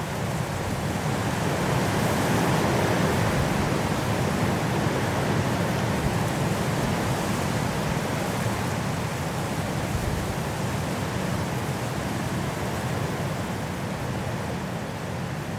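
Strong wind blowing through trees in a snowstorm: a steady rushing that swells a little a few seconds in and eases slightly near the end.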